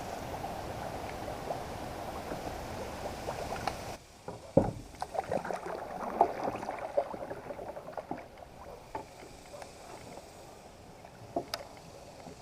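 Water and handling sounds on a fishing kayak: a steady wash for about four seconds, then a sudden drop to quieter water with scattered knocks and clicks, likely gear bumping the hull.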